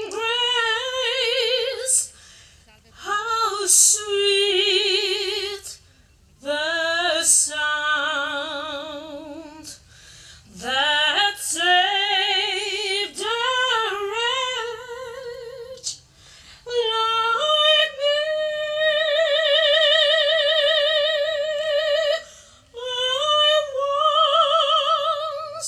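A woman singing solo and unaccompanied in a classical style with wide vibrato. Her phrases are broken by short pauses, and a long held note falls about two-thirds of the way through.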